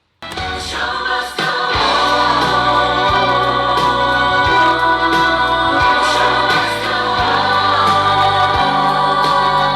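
A song with singing starts abruptly a moment in, builds over the first second or so, then plays at full, steady loudness.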